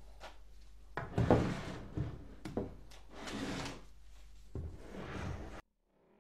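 Handling noises on a wooden workbench: knocks and rubbing as a dyed pig skull, its jawbone and a bowl are picked up, wiped and set down. The loudest knock comes about a second in, and the sound cuts off suddenly near the end.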